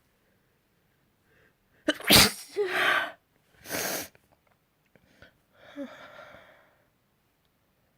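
A person sneezes hard once, a sudden explosive burst about two seconds in with a voiced tail. A shorter breathy burst follows, and then a softer voiced sound.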